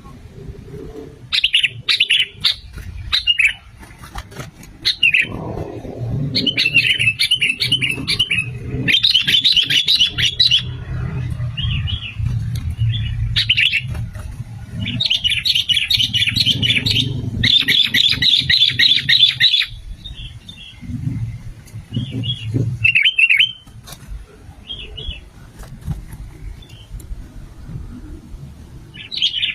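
Sooty-headed bulbul singing: bursts of quick, chattering notes in phrases of a second or two, repeated with short gaps, over a low background rumble.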